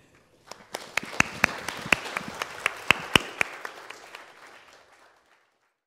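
Audience applauding, with several sharp, loud claps close to the microphone; the applause fades out and stops a little after five seconds in.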